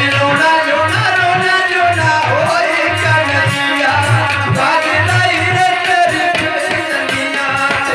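Indian music: a sliding, ornamented melodic line over a steady low drum beat that repeats about once a second.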